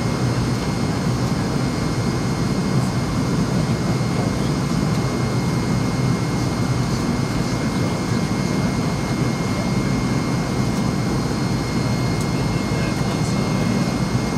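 Steady cabin noise inside a McDonnell Douglas MD-88 in flight: the deep, even rumble of its rear-mounted Pratt & Whitney JT8D turbofan engines, with a thin steady high whine over it.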